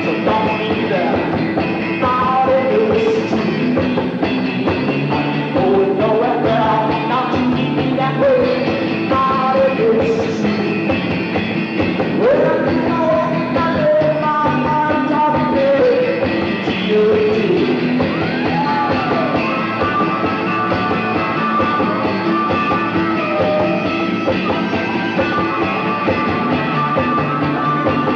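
A rock band playing live, the electric guitar out in front. From about two-thirds of the way in, a high figure repeats over and over.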